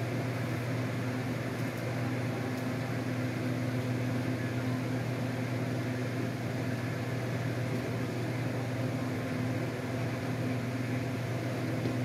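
Steady low machine hum, even and unbroken, like a fan or appliance motor running.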